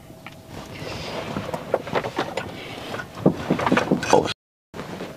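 Rustling and scattered knocks of movement close to the microphone over a steady noise haze, cutting out completely for a moment near the end.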